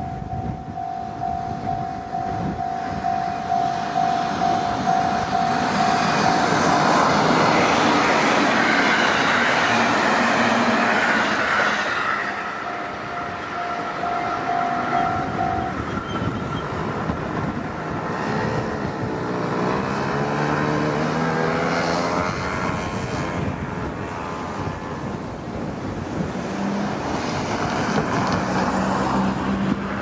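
Japanese railway level-crossing alarm ringing its steady repeating tone while a JR Tokaido Line train passes over the crossing, the rushing and rail noise swelling about six seconds in and easing after about twelve. The alarm stops about halfway through, and a wavering whine follows a few seconds later.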